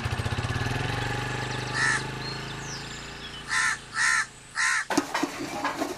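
A motorcycle engine running with a fast even pulse, fading away over the first few seconds, and a crow cawing four times, three caws in quick succession toward the end.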